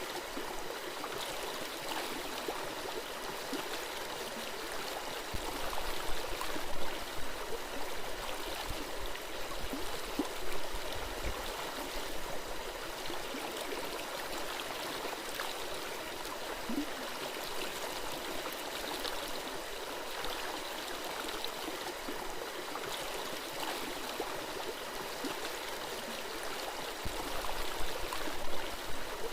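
Small forest stream babbling and gurgling over rocks, a steady rush of water that swells louder a few times, about six seconds in and again near the end.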